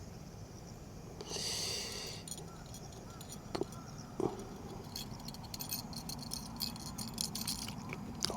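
Light clicking and rattling of small hard objects being handled, with a short hiss a little over a second in and a run of quick small clicks through the second half.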